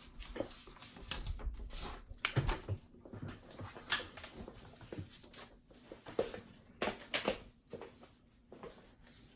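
A sheet of paper being taken out of a Groma Kolibri manual typewriter: scattered clicks and paper rustles as the platen and paper release are worked and the sheet slides out.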